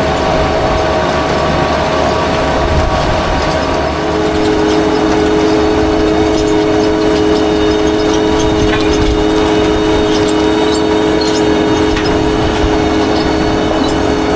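Heavy farm machinery running steadily: a loud mechanical drone with steady whining tones that change pitch about four seconds in.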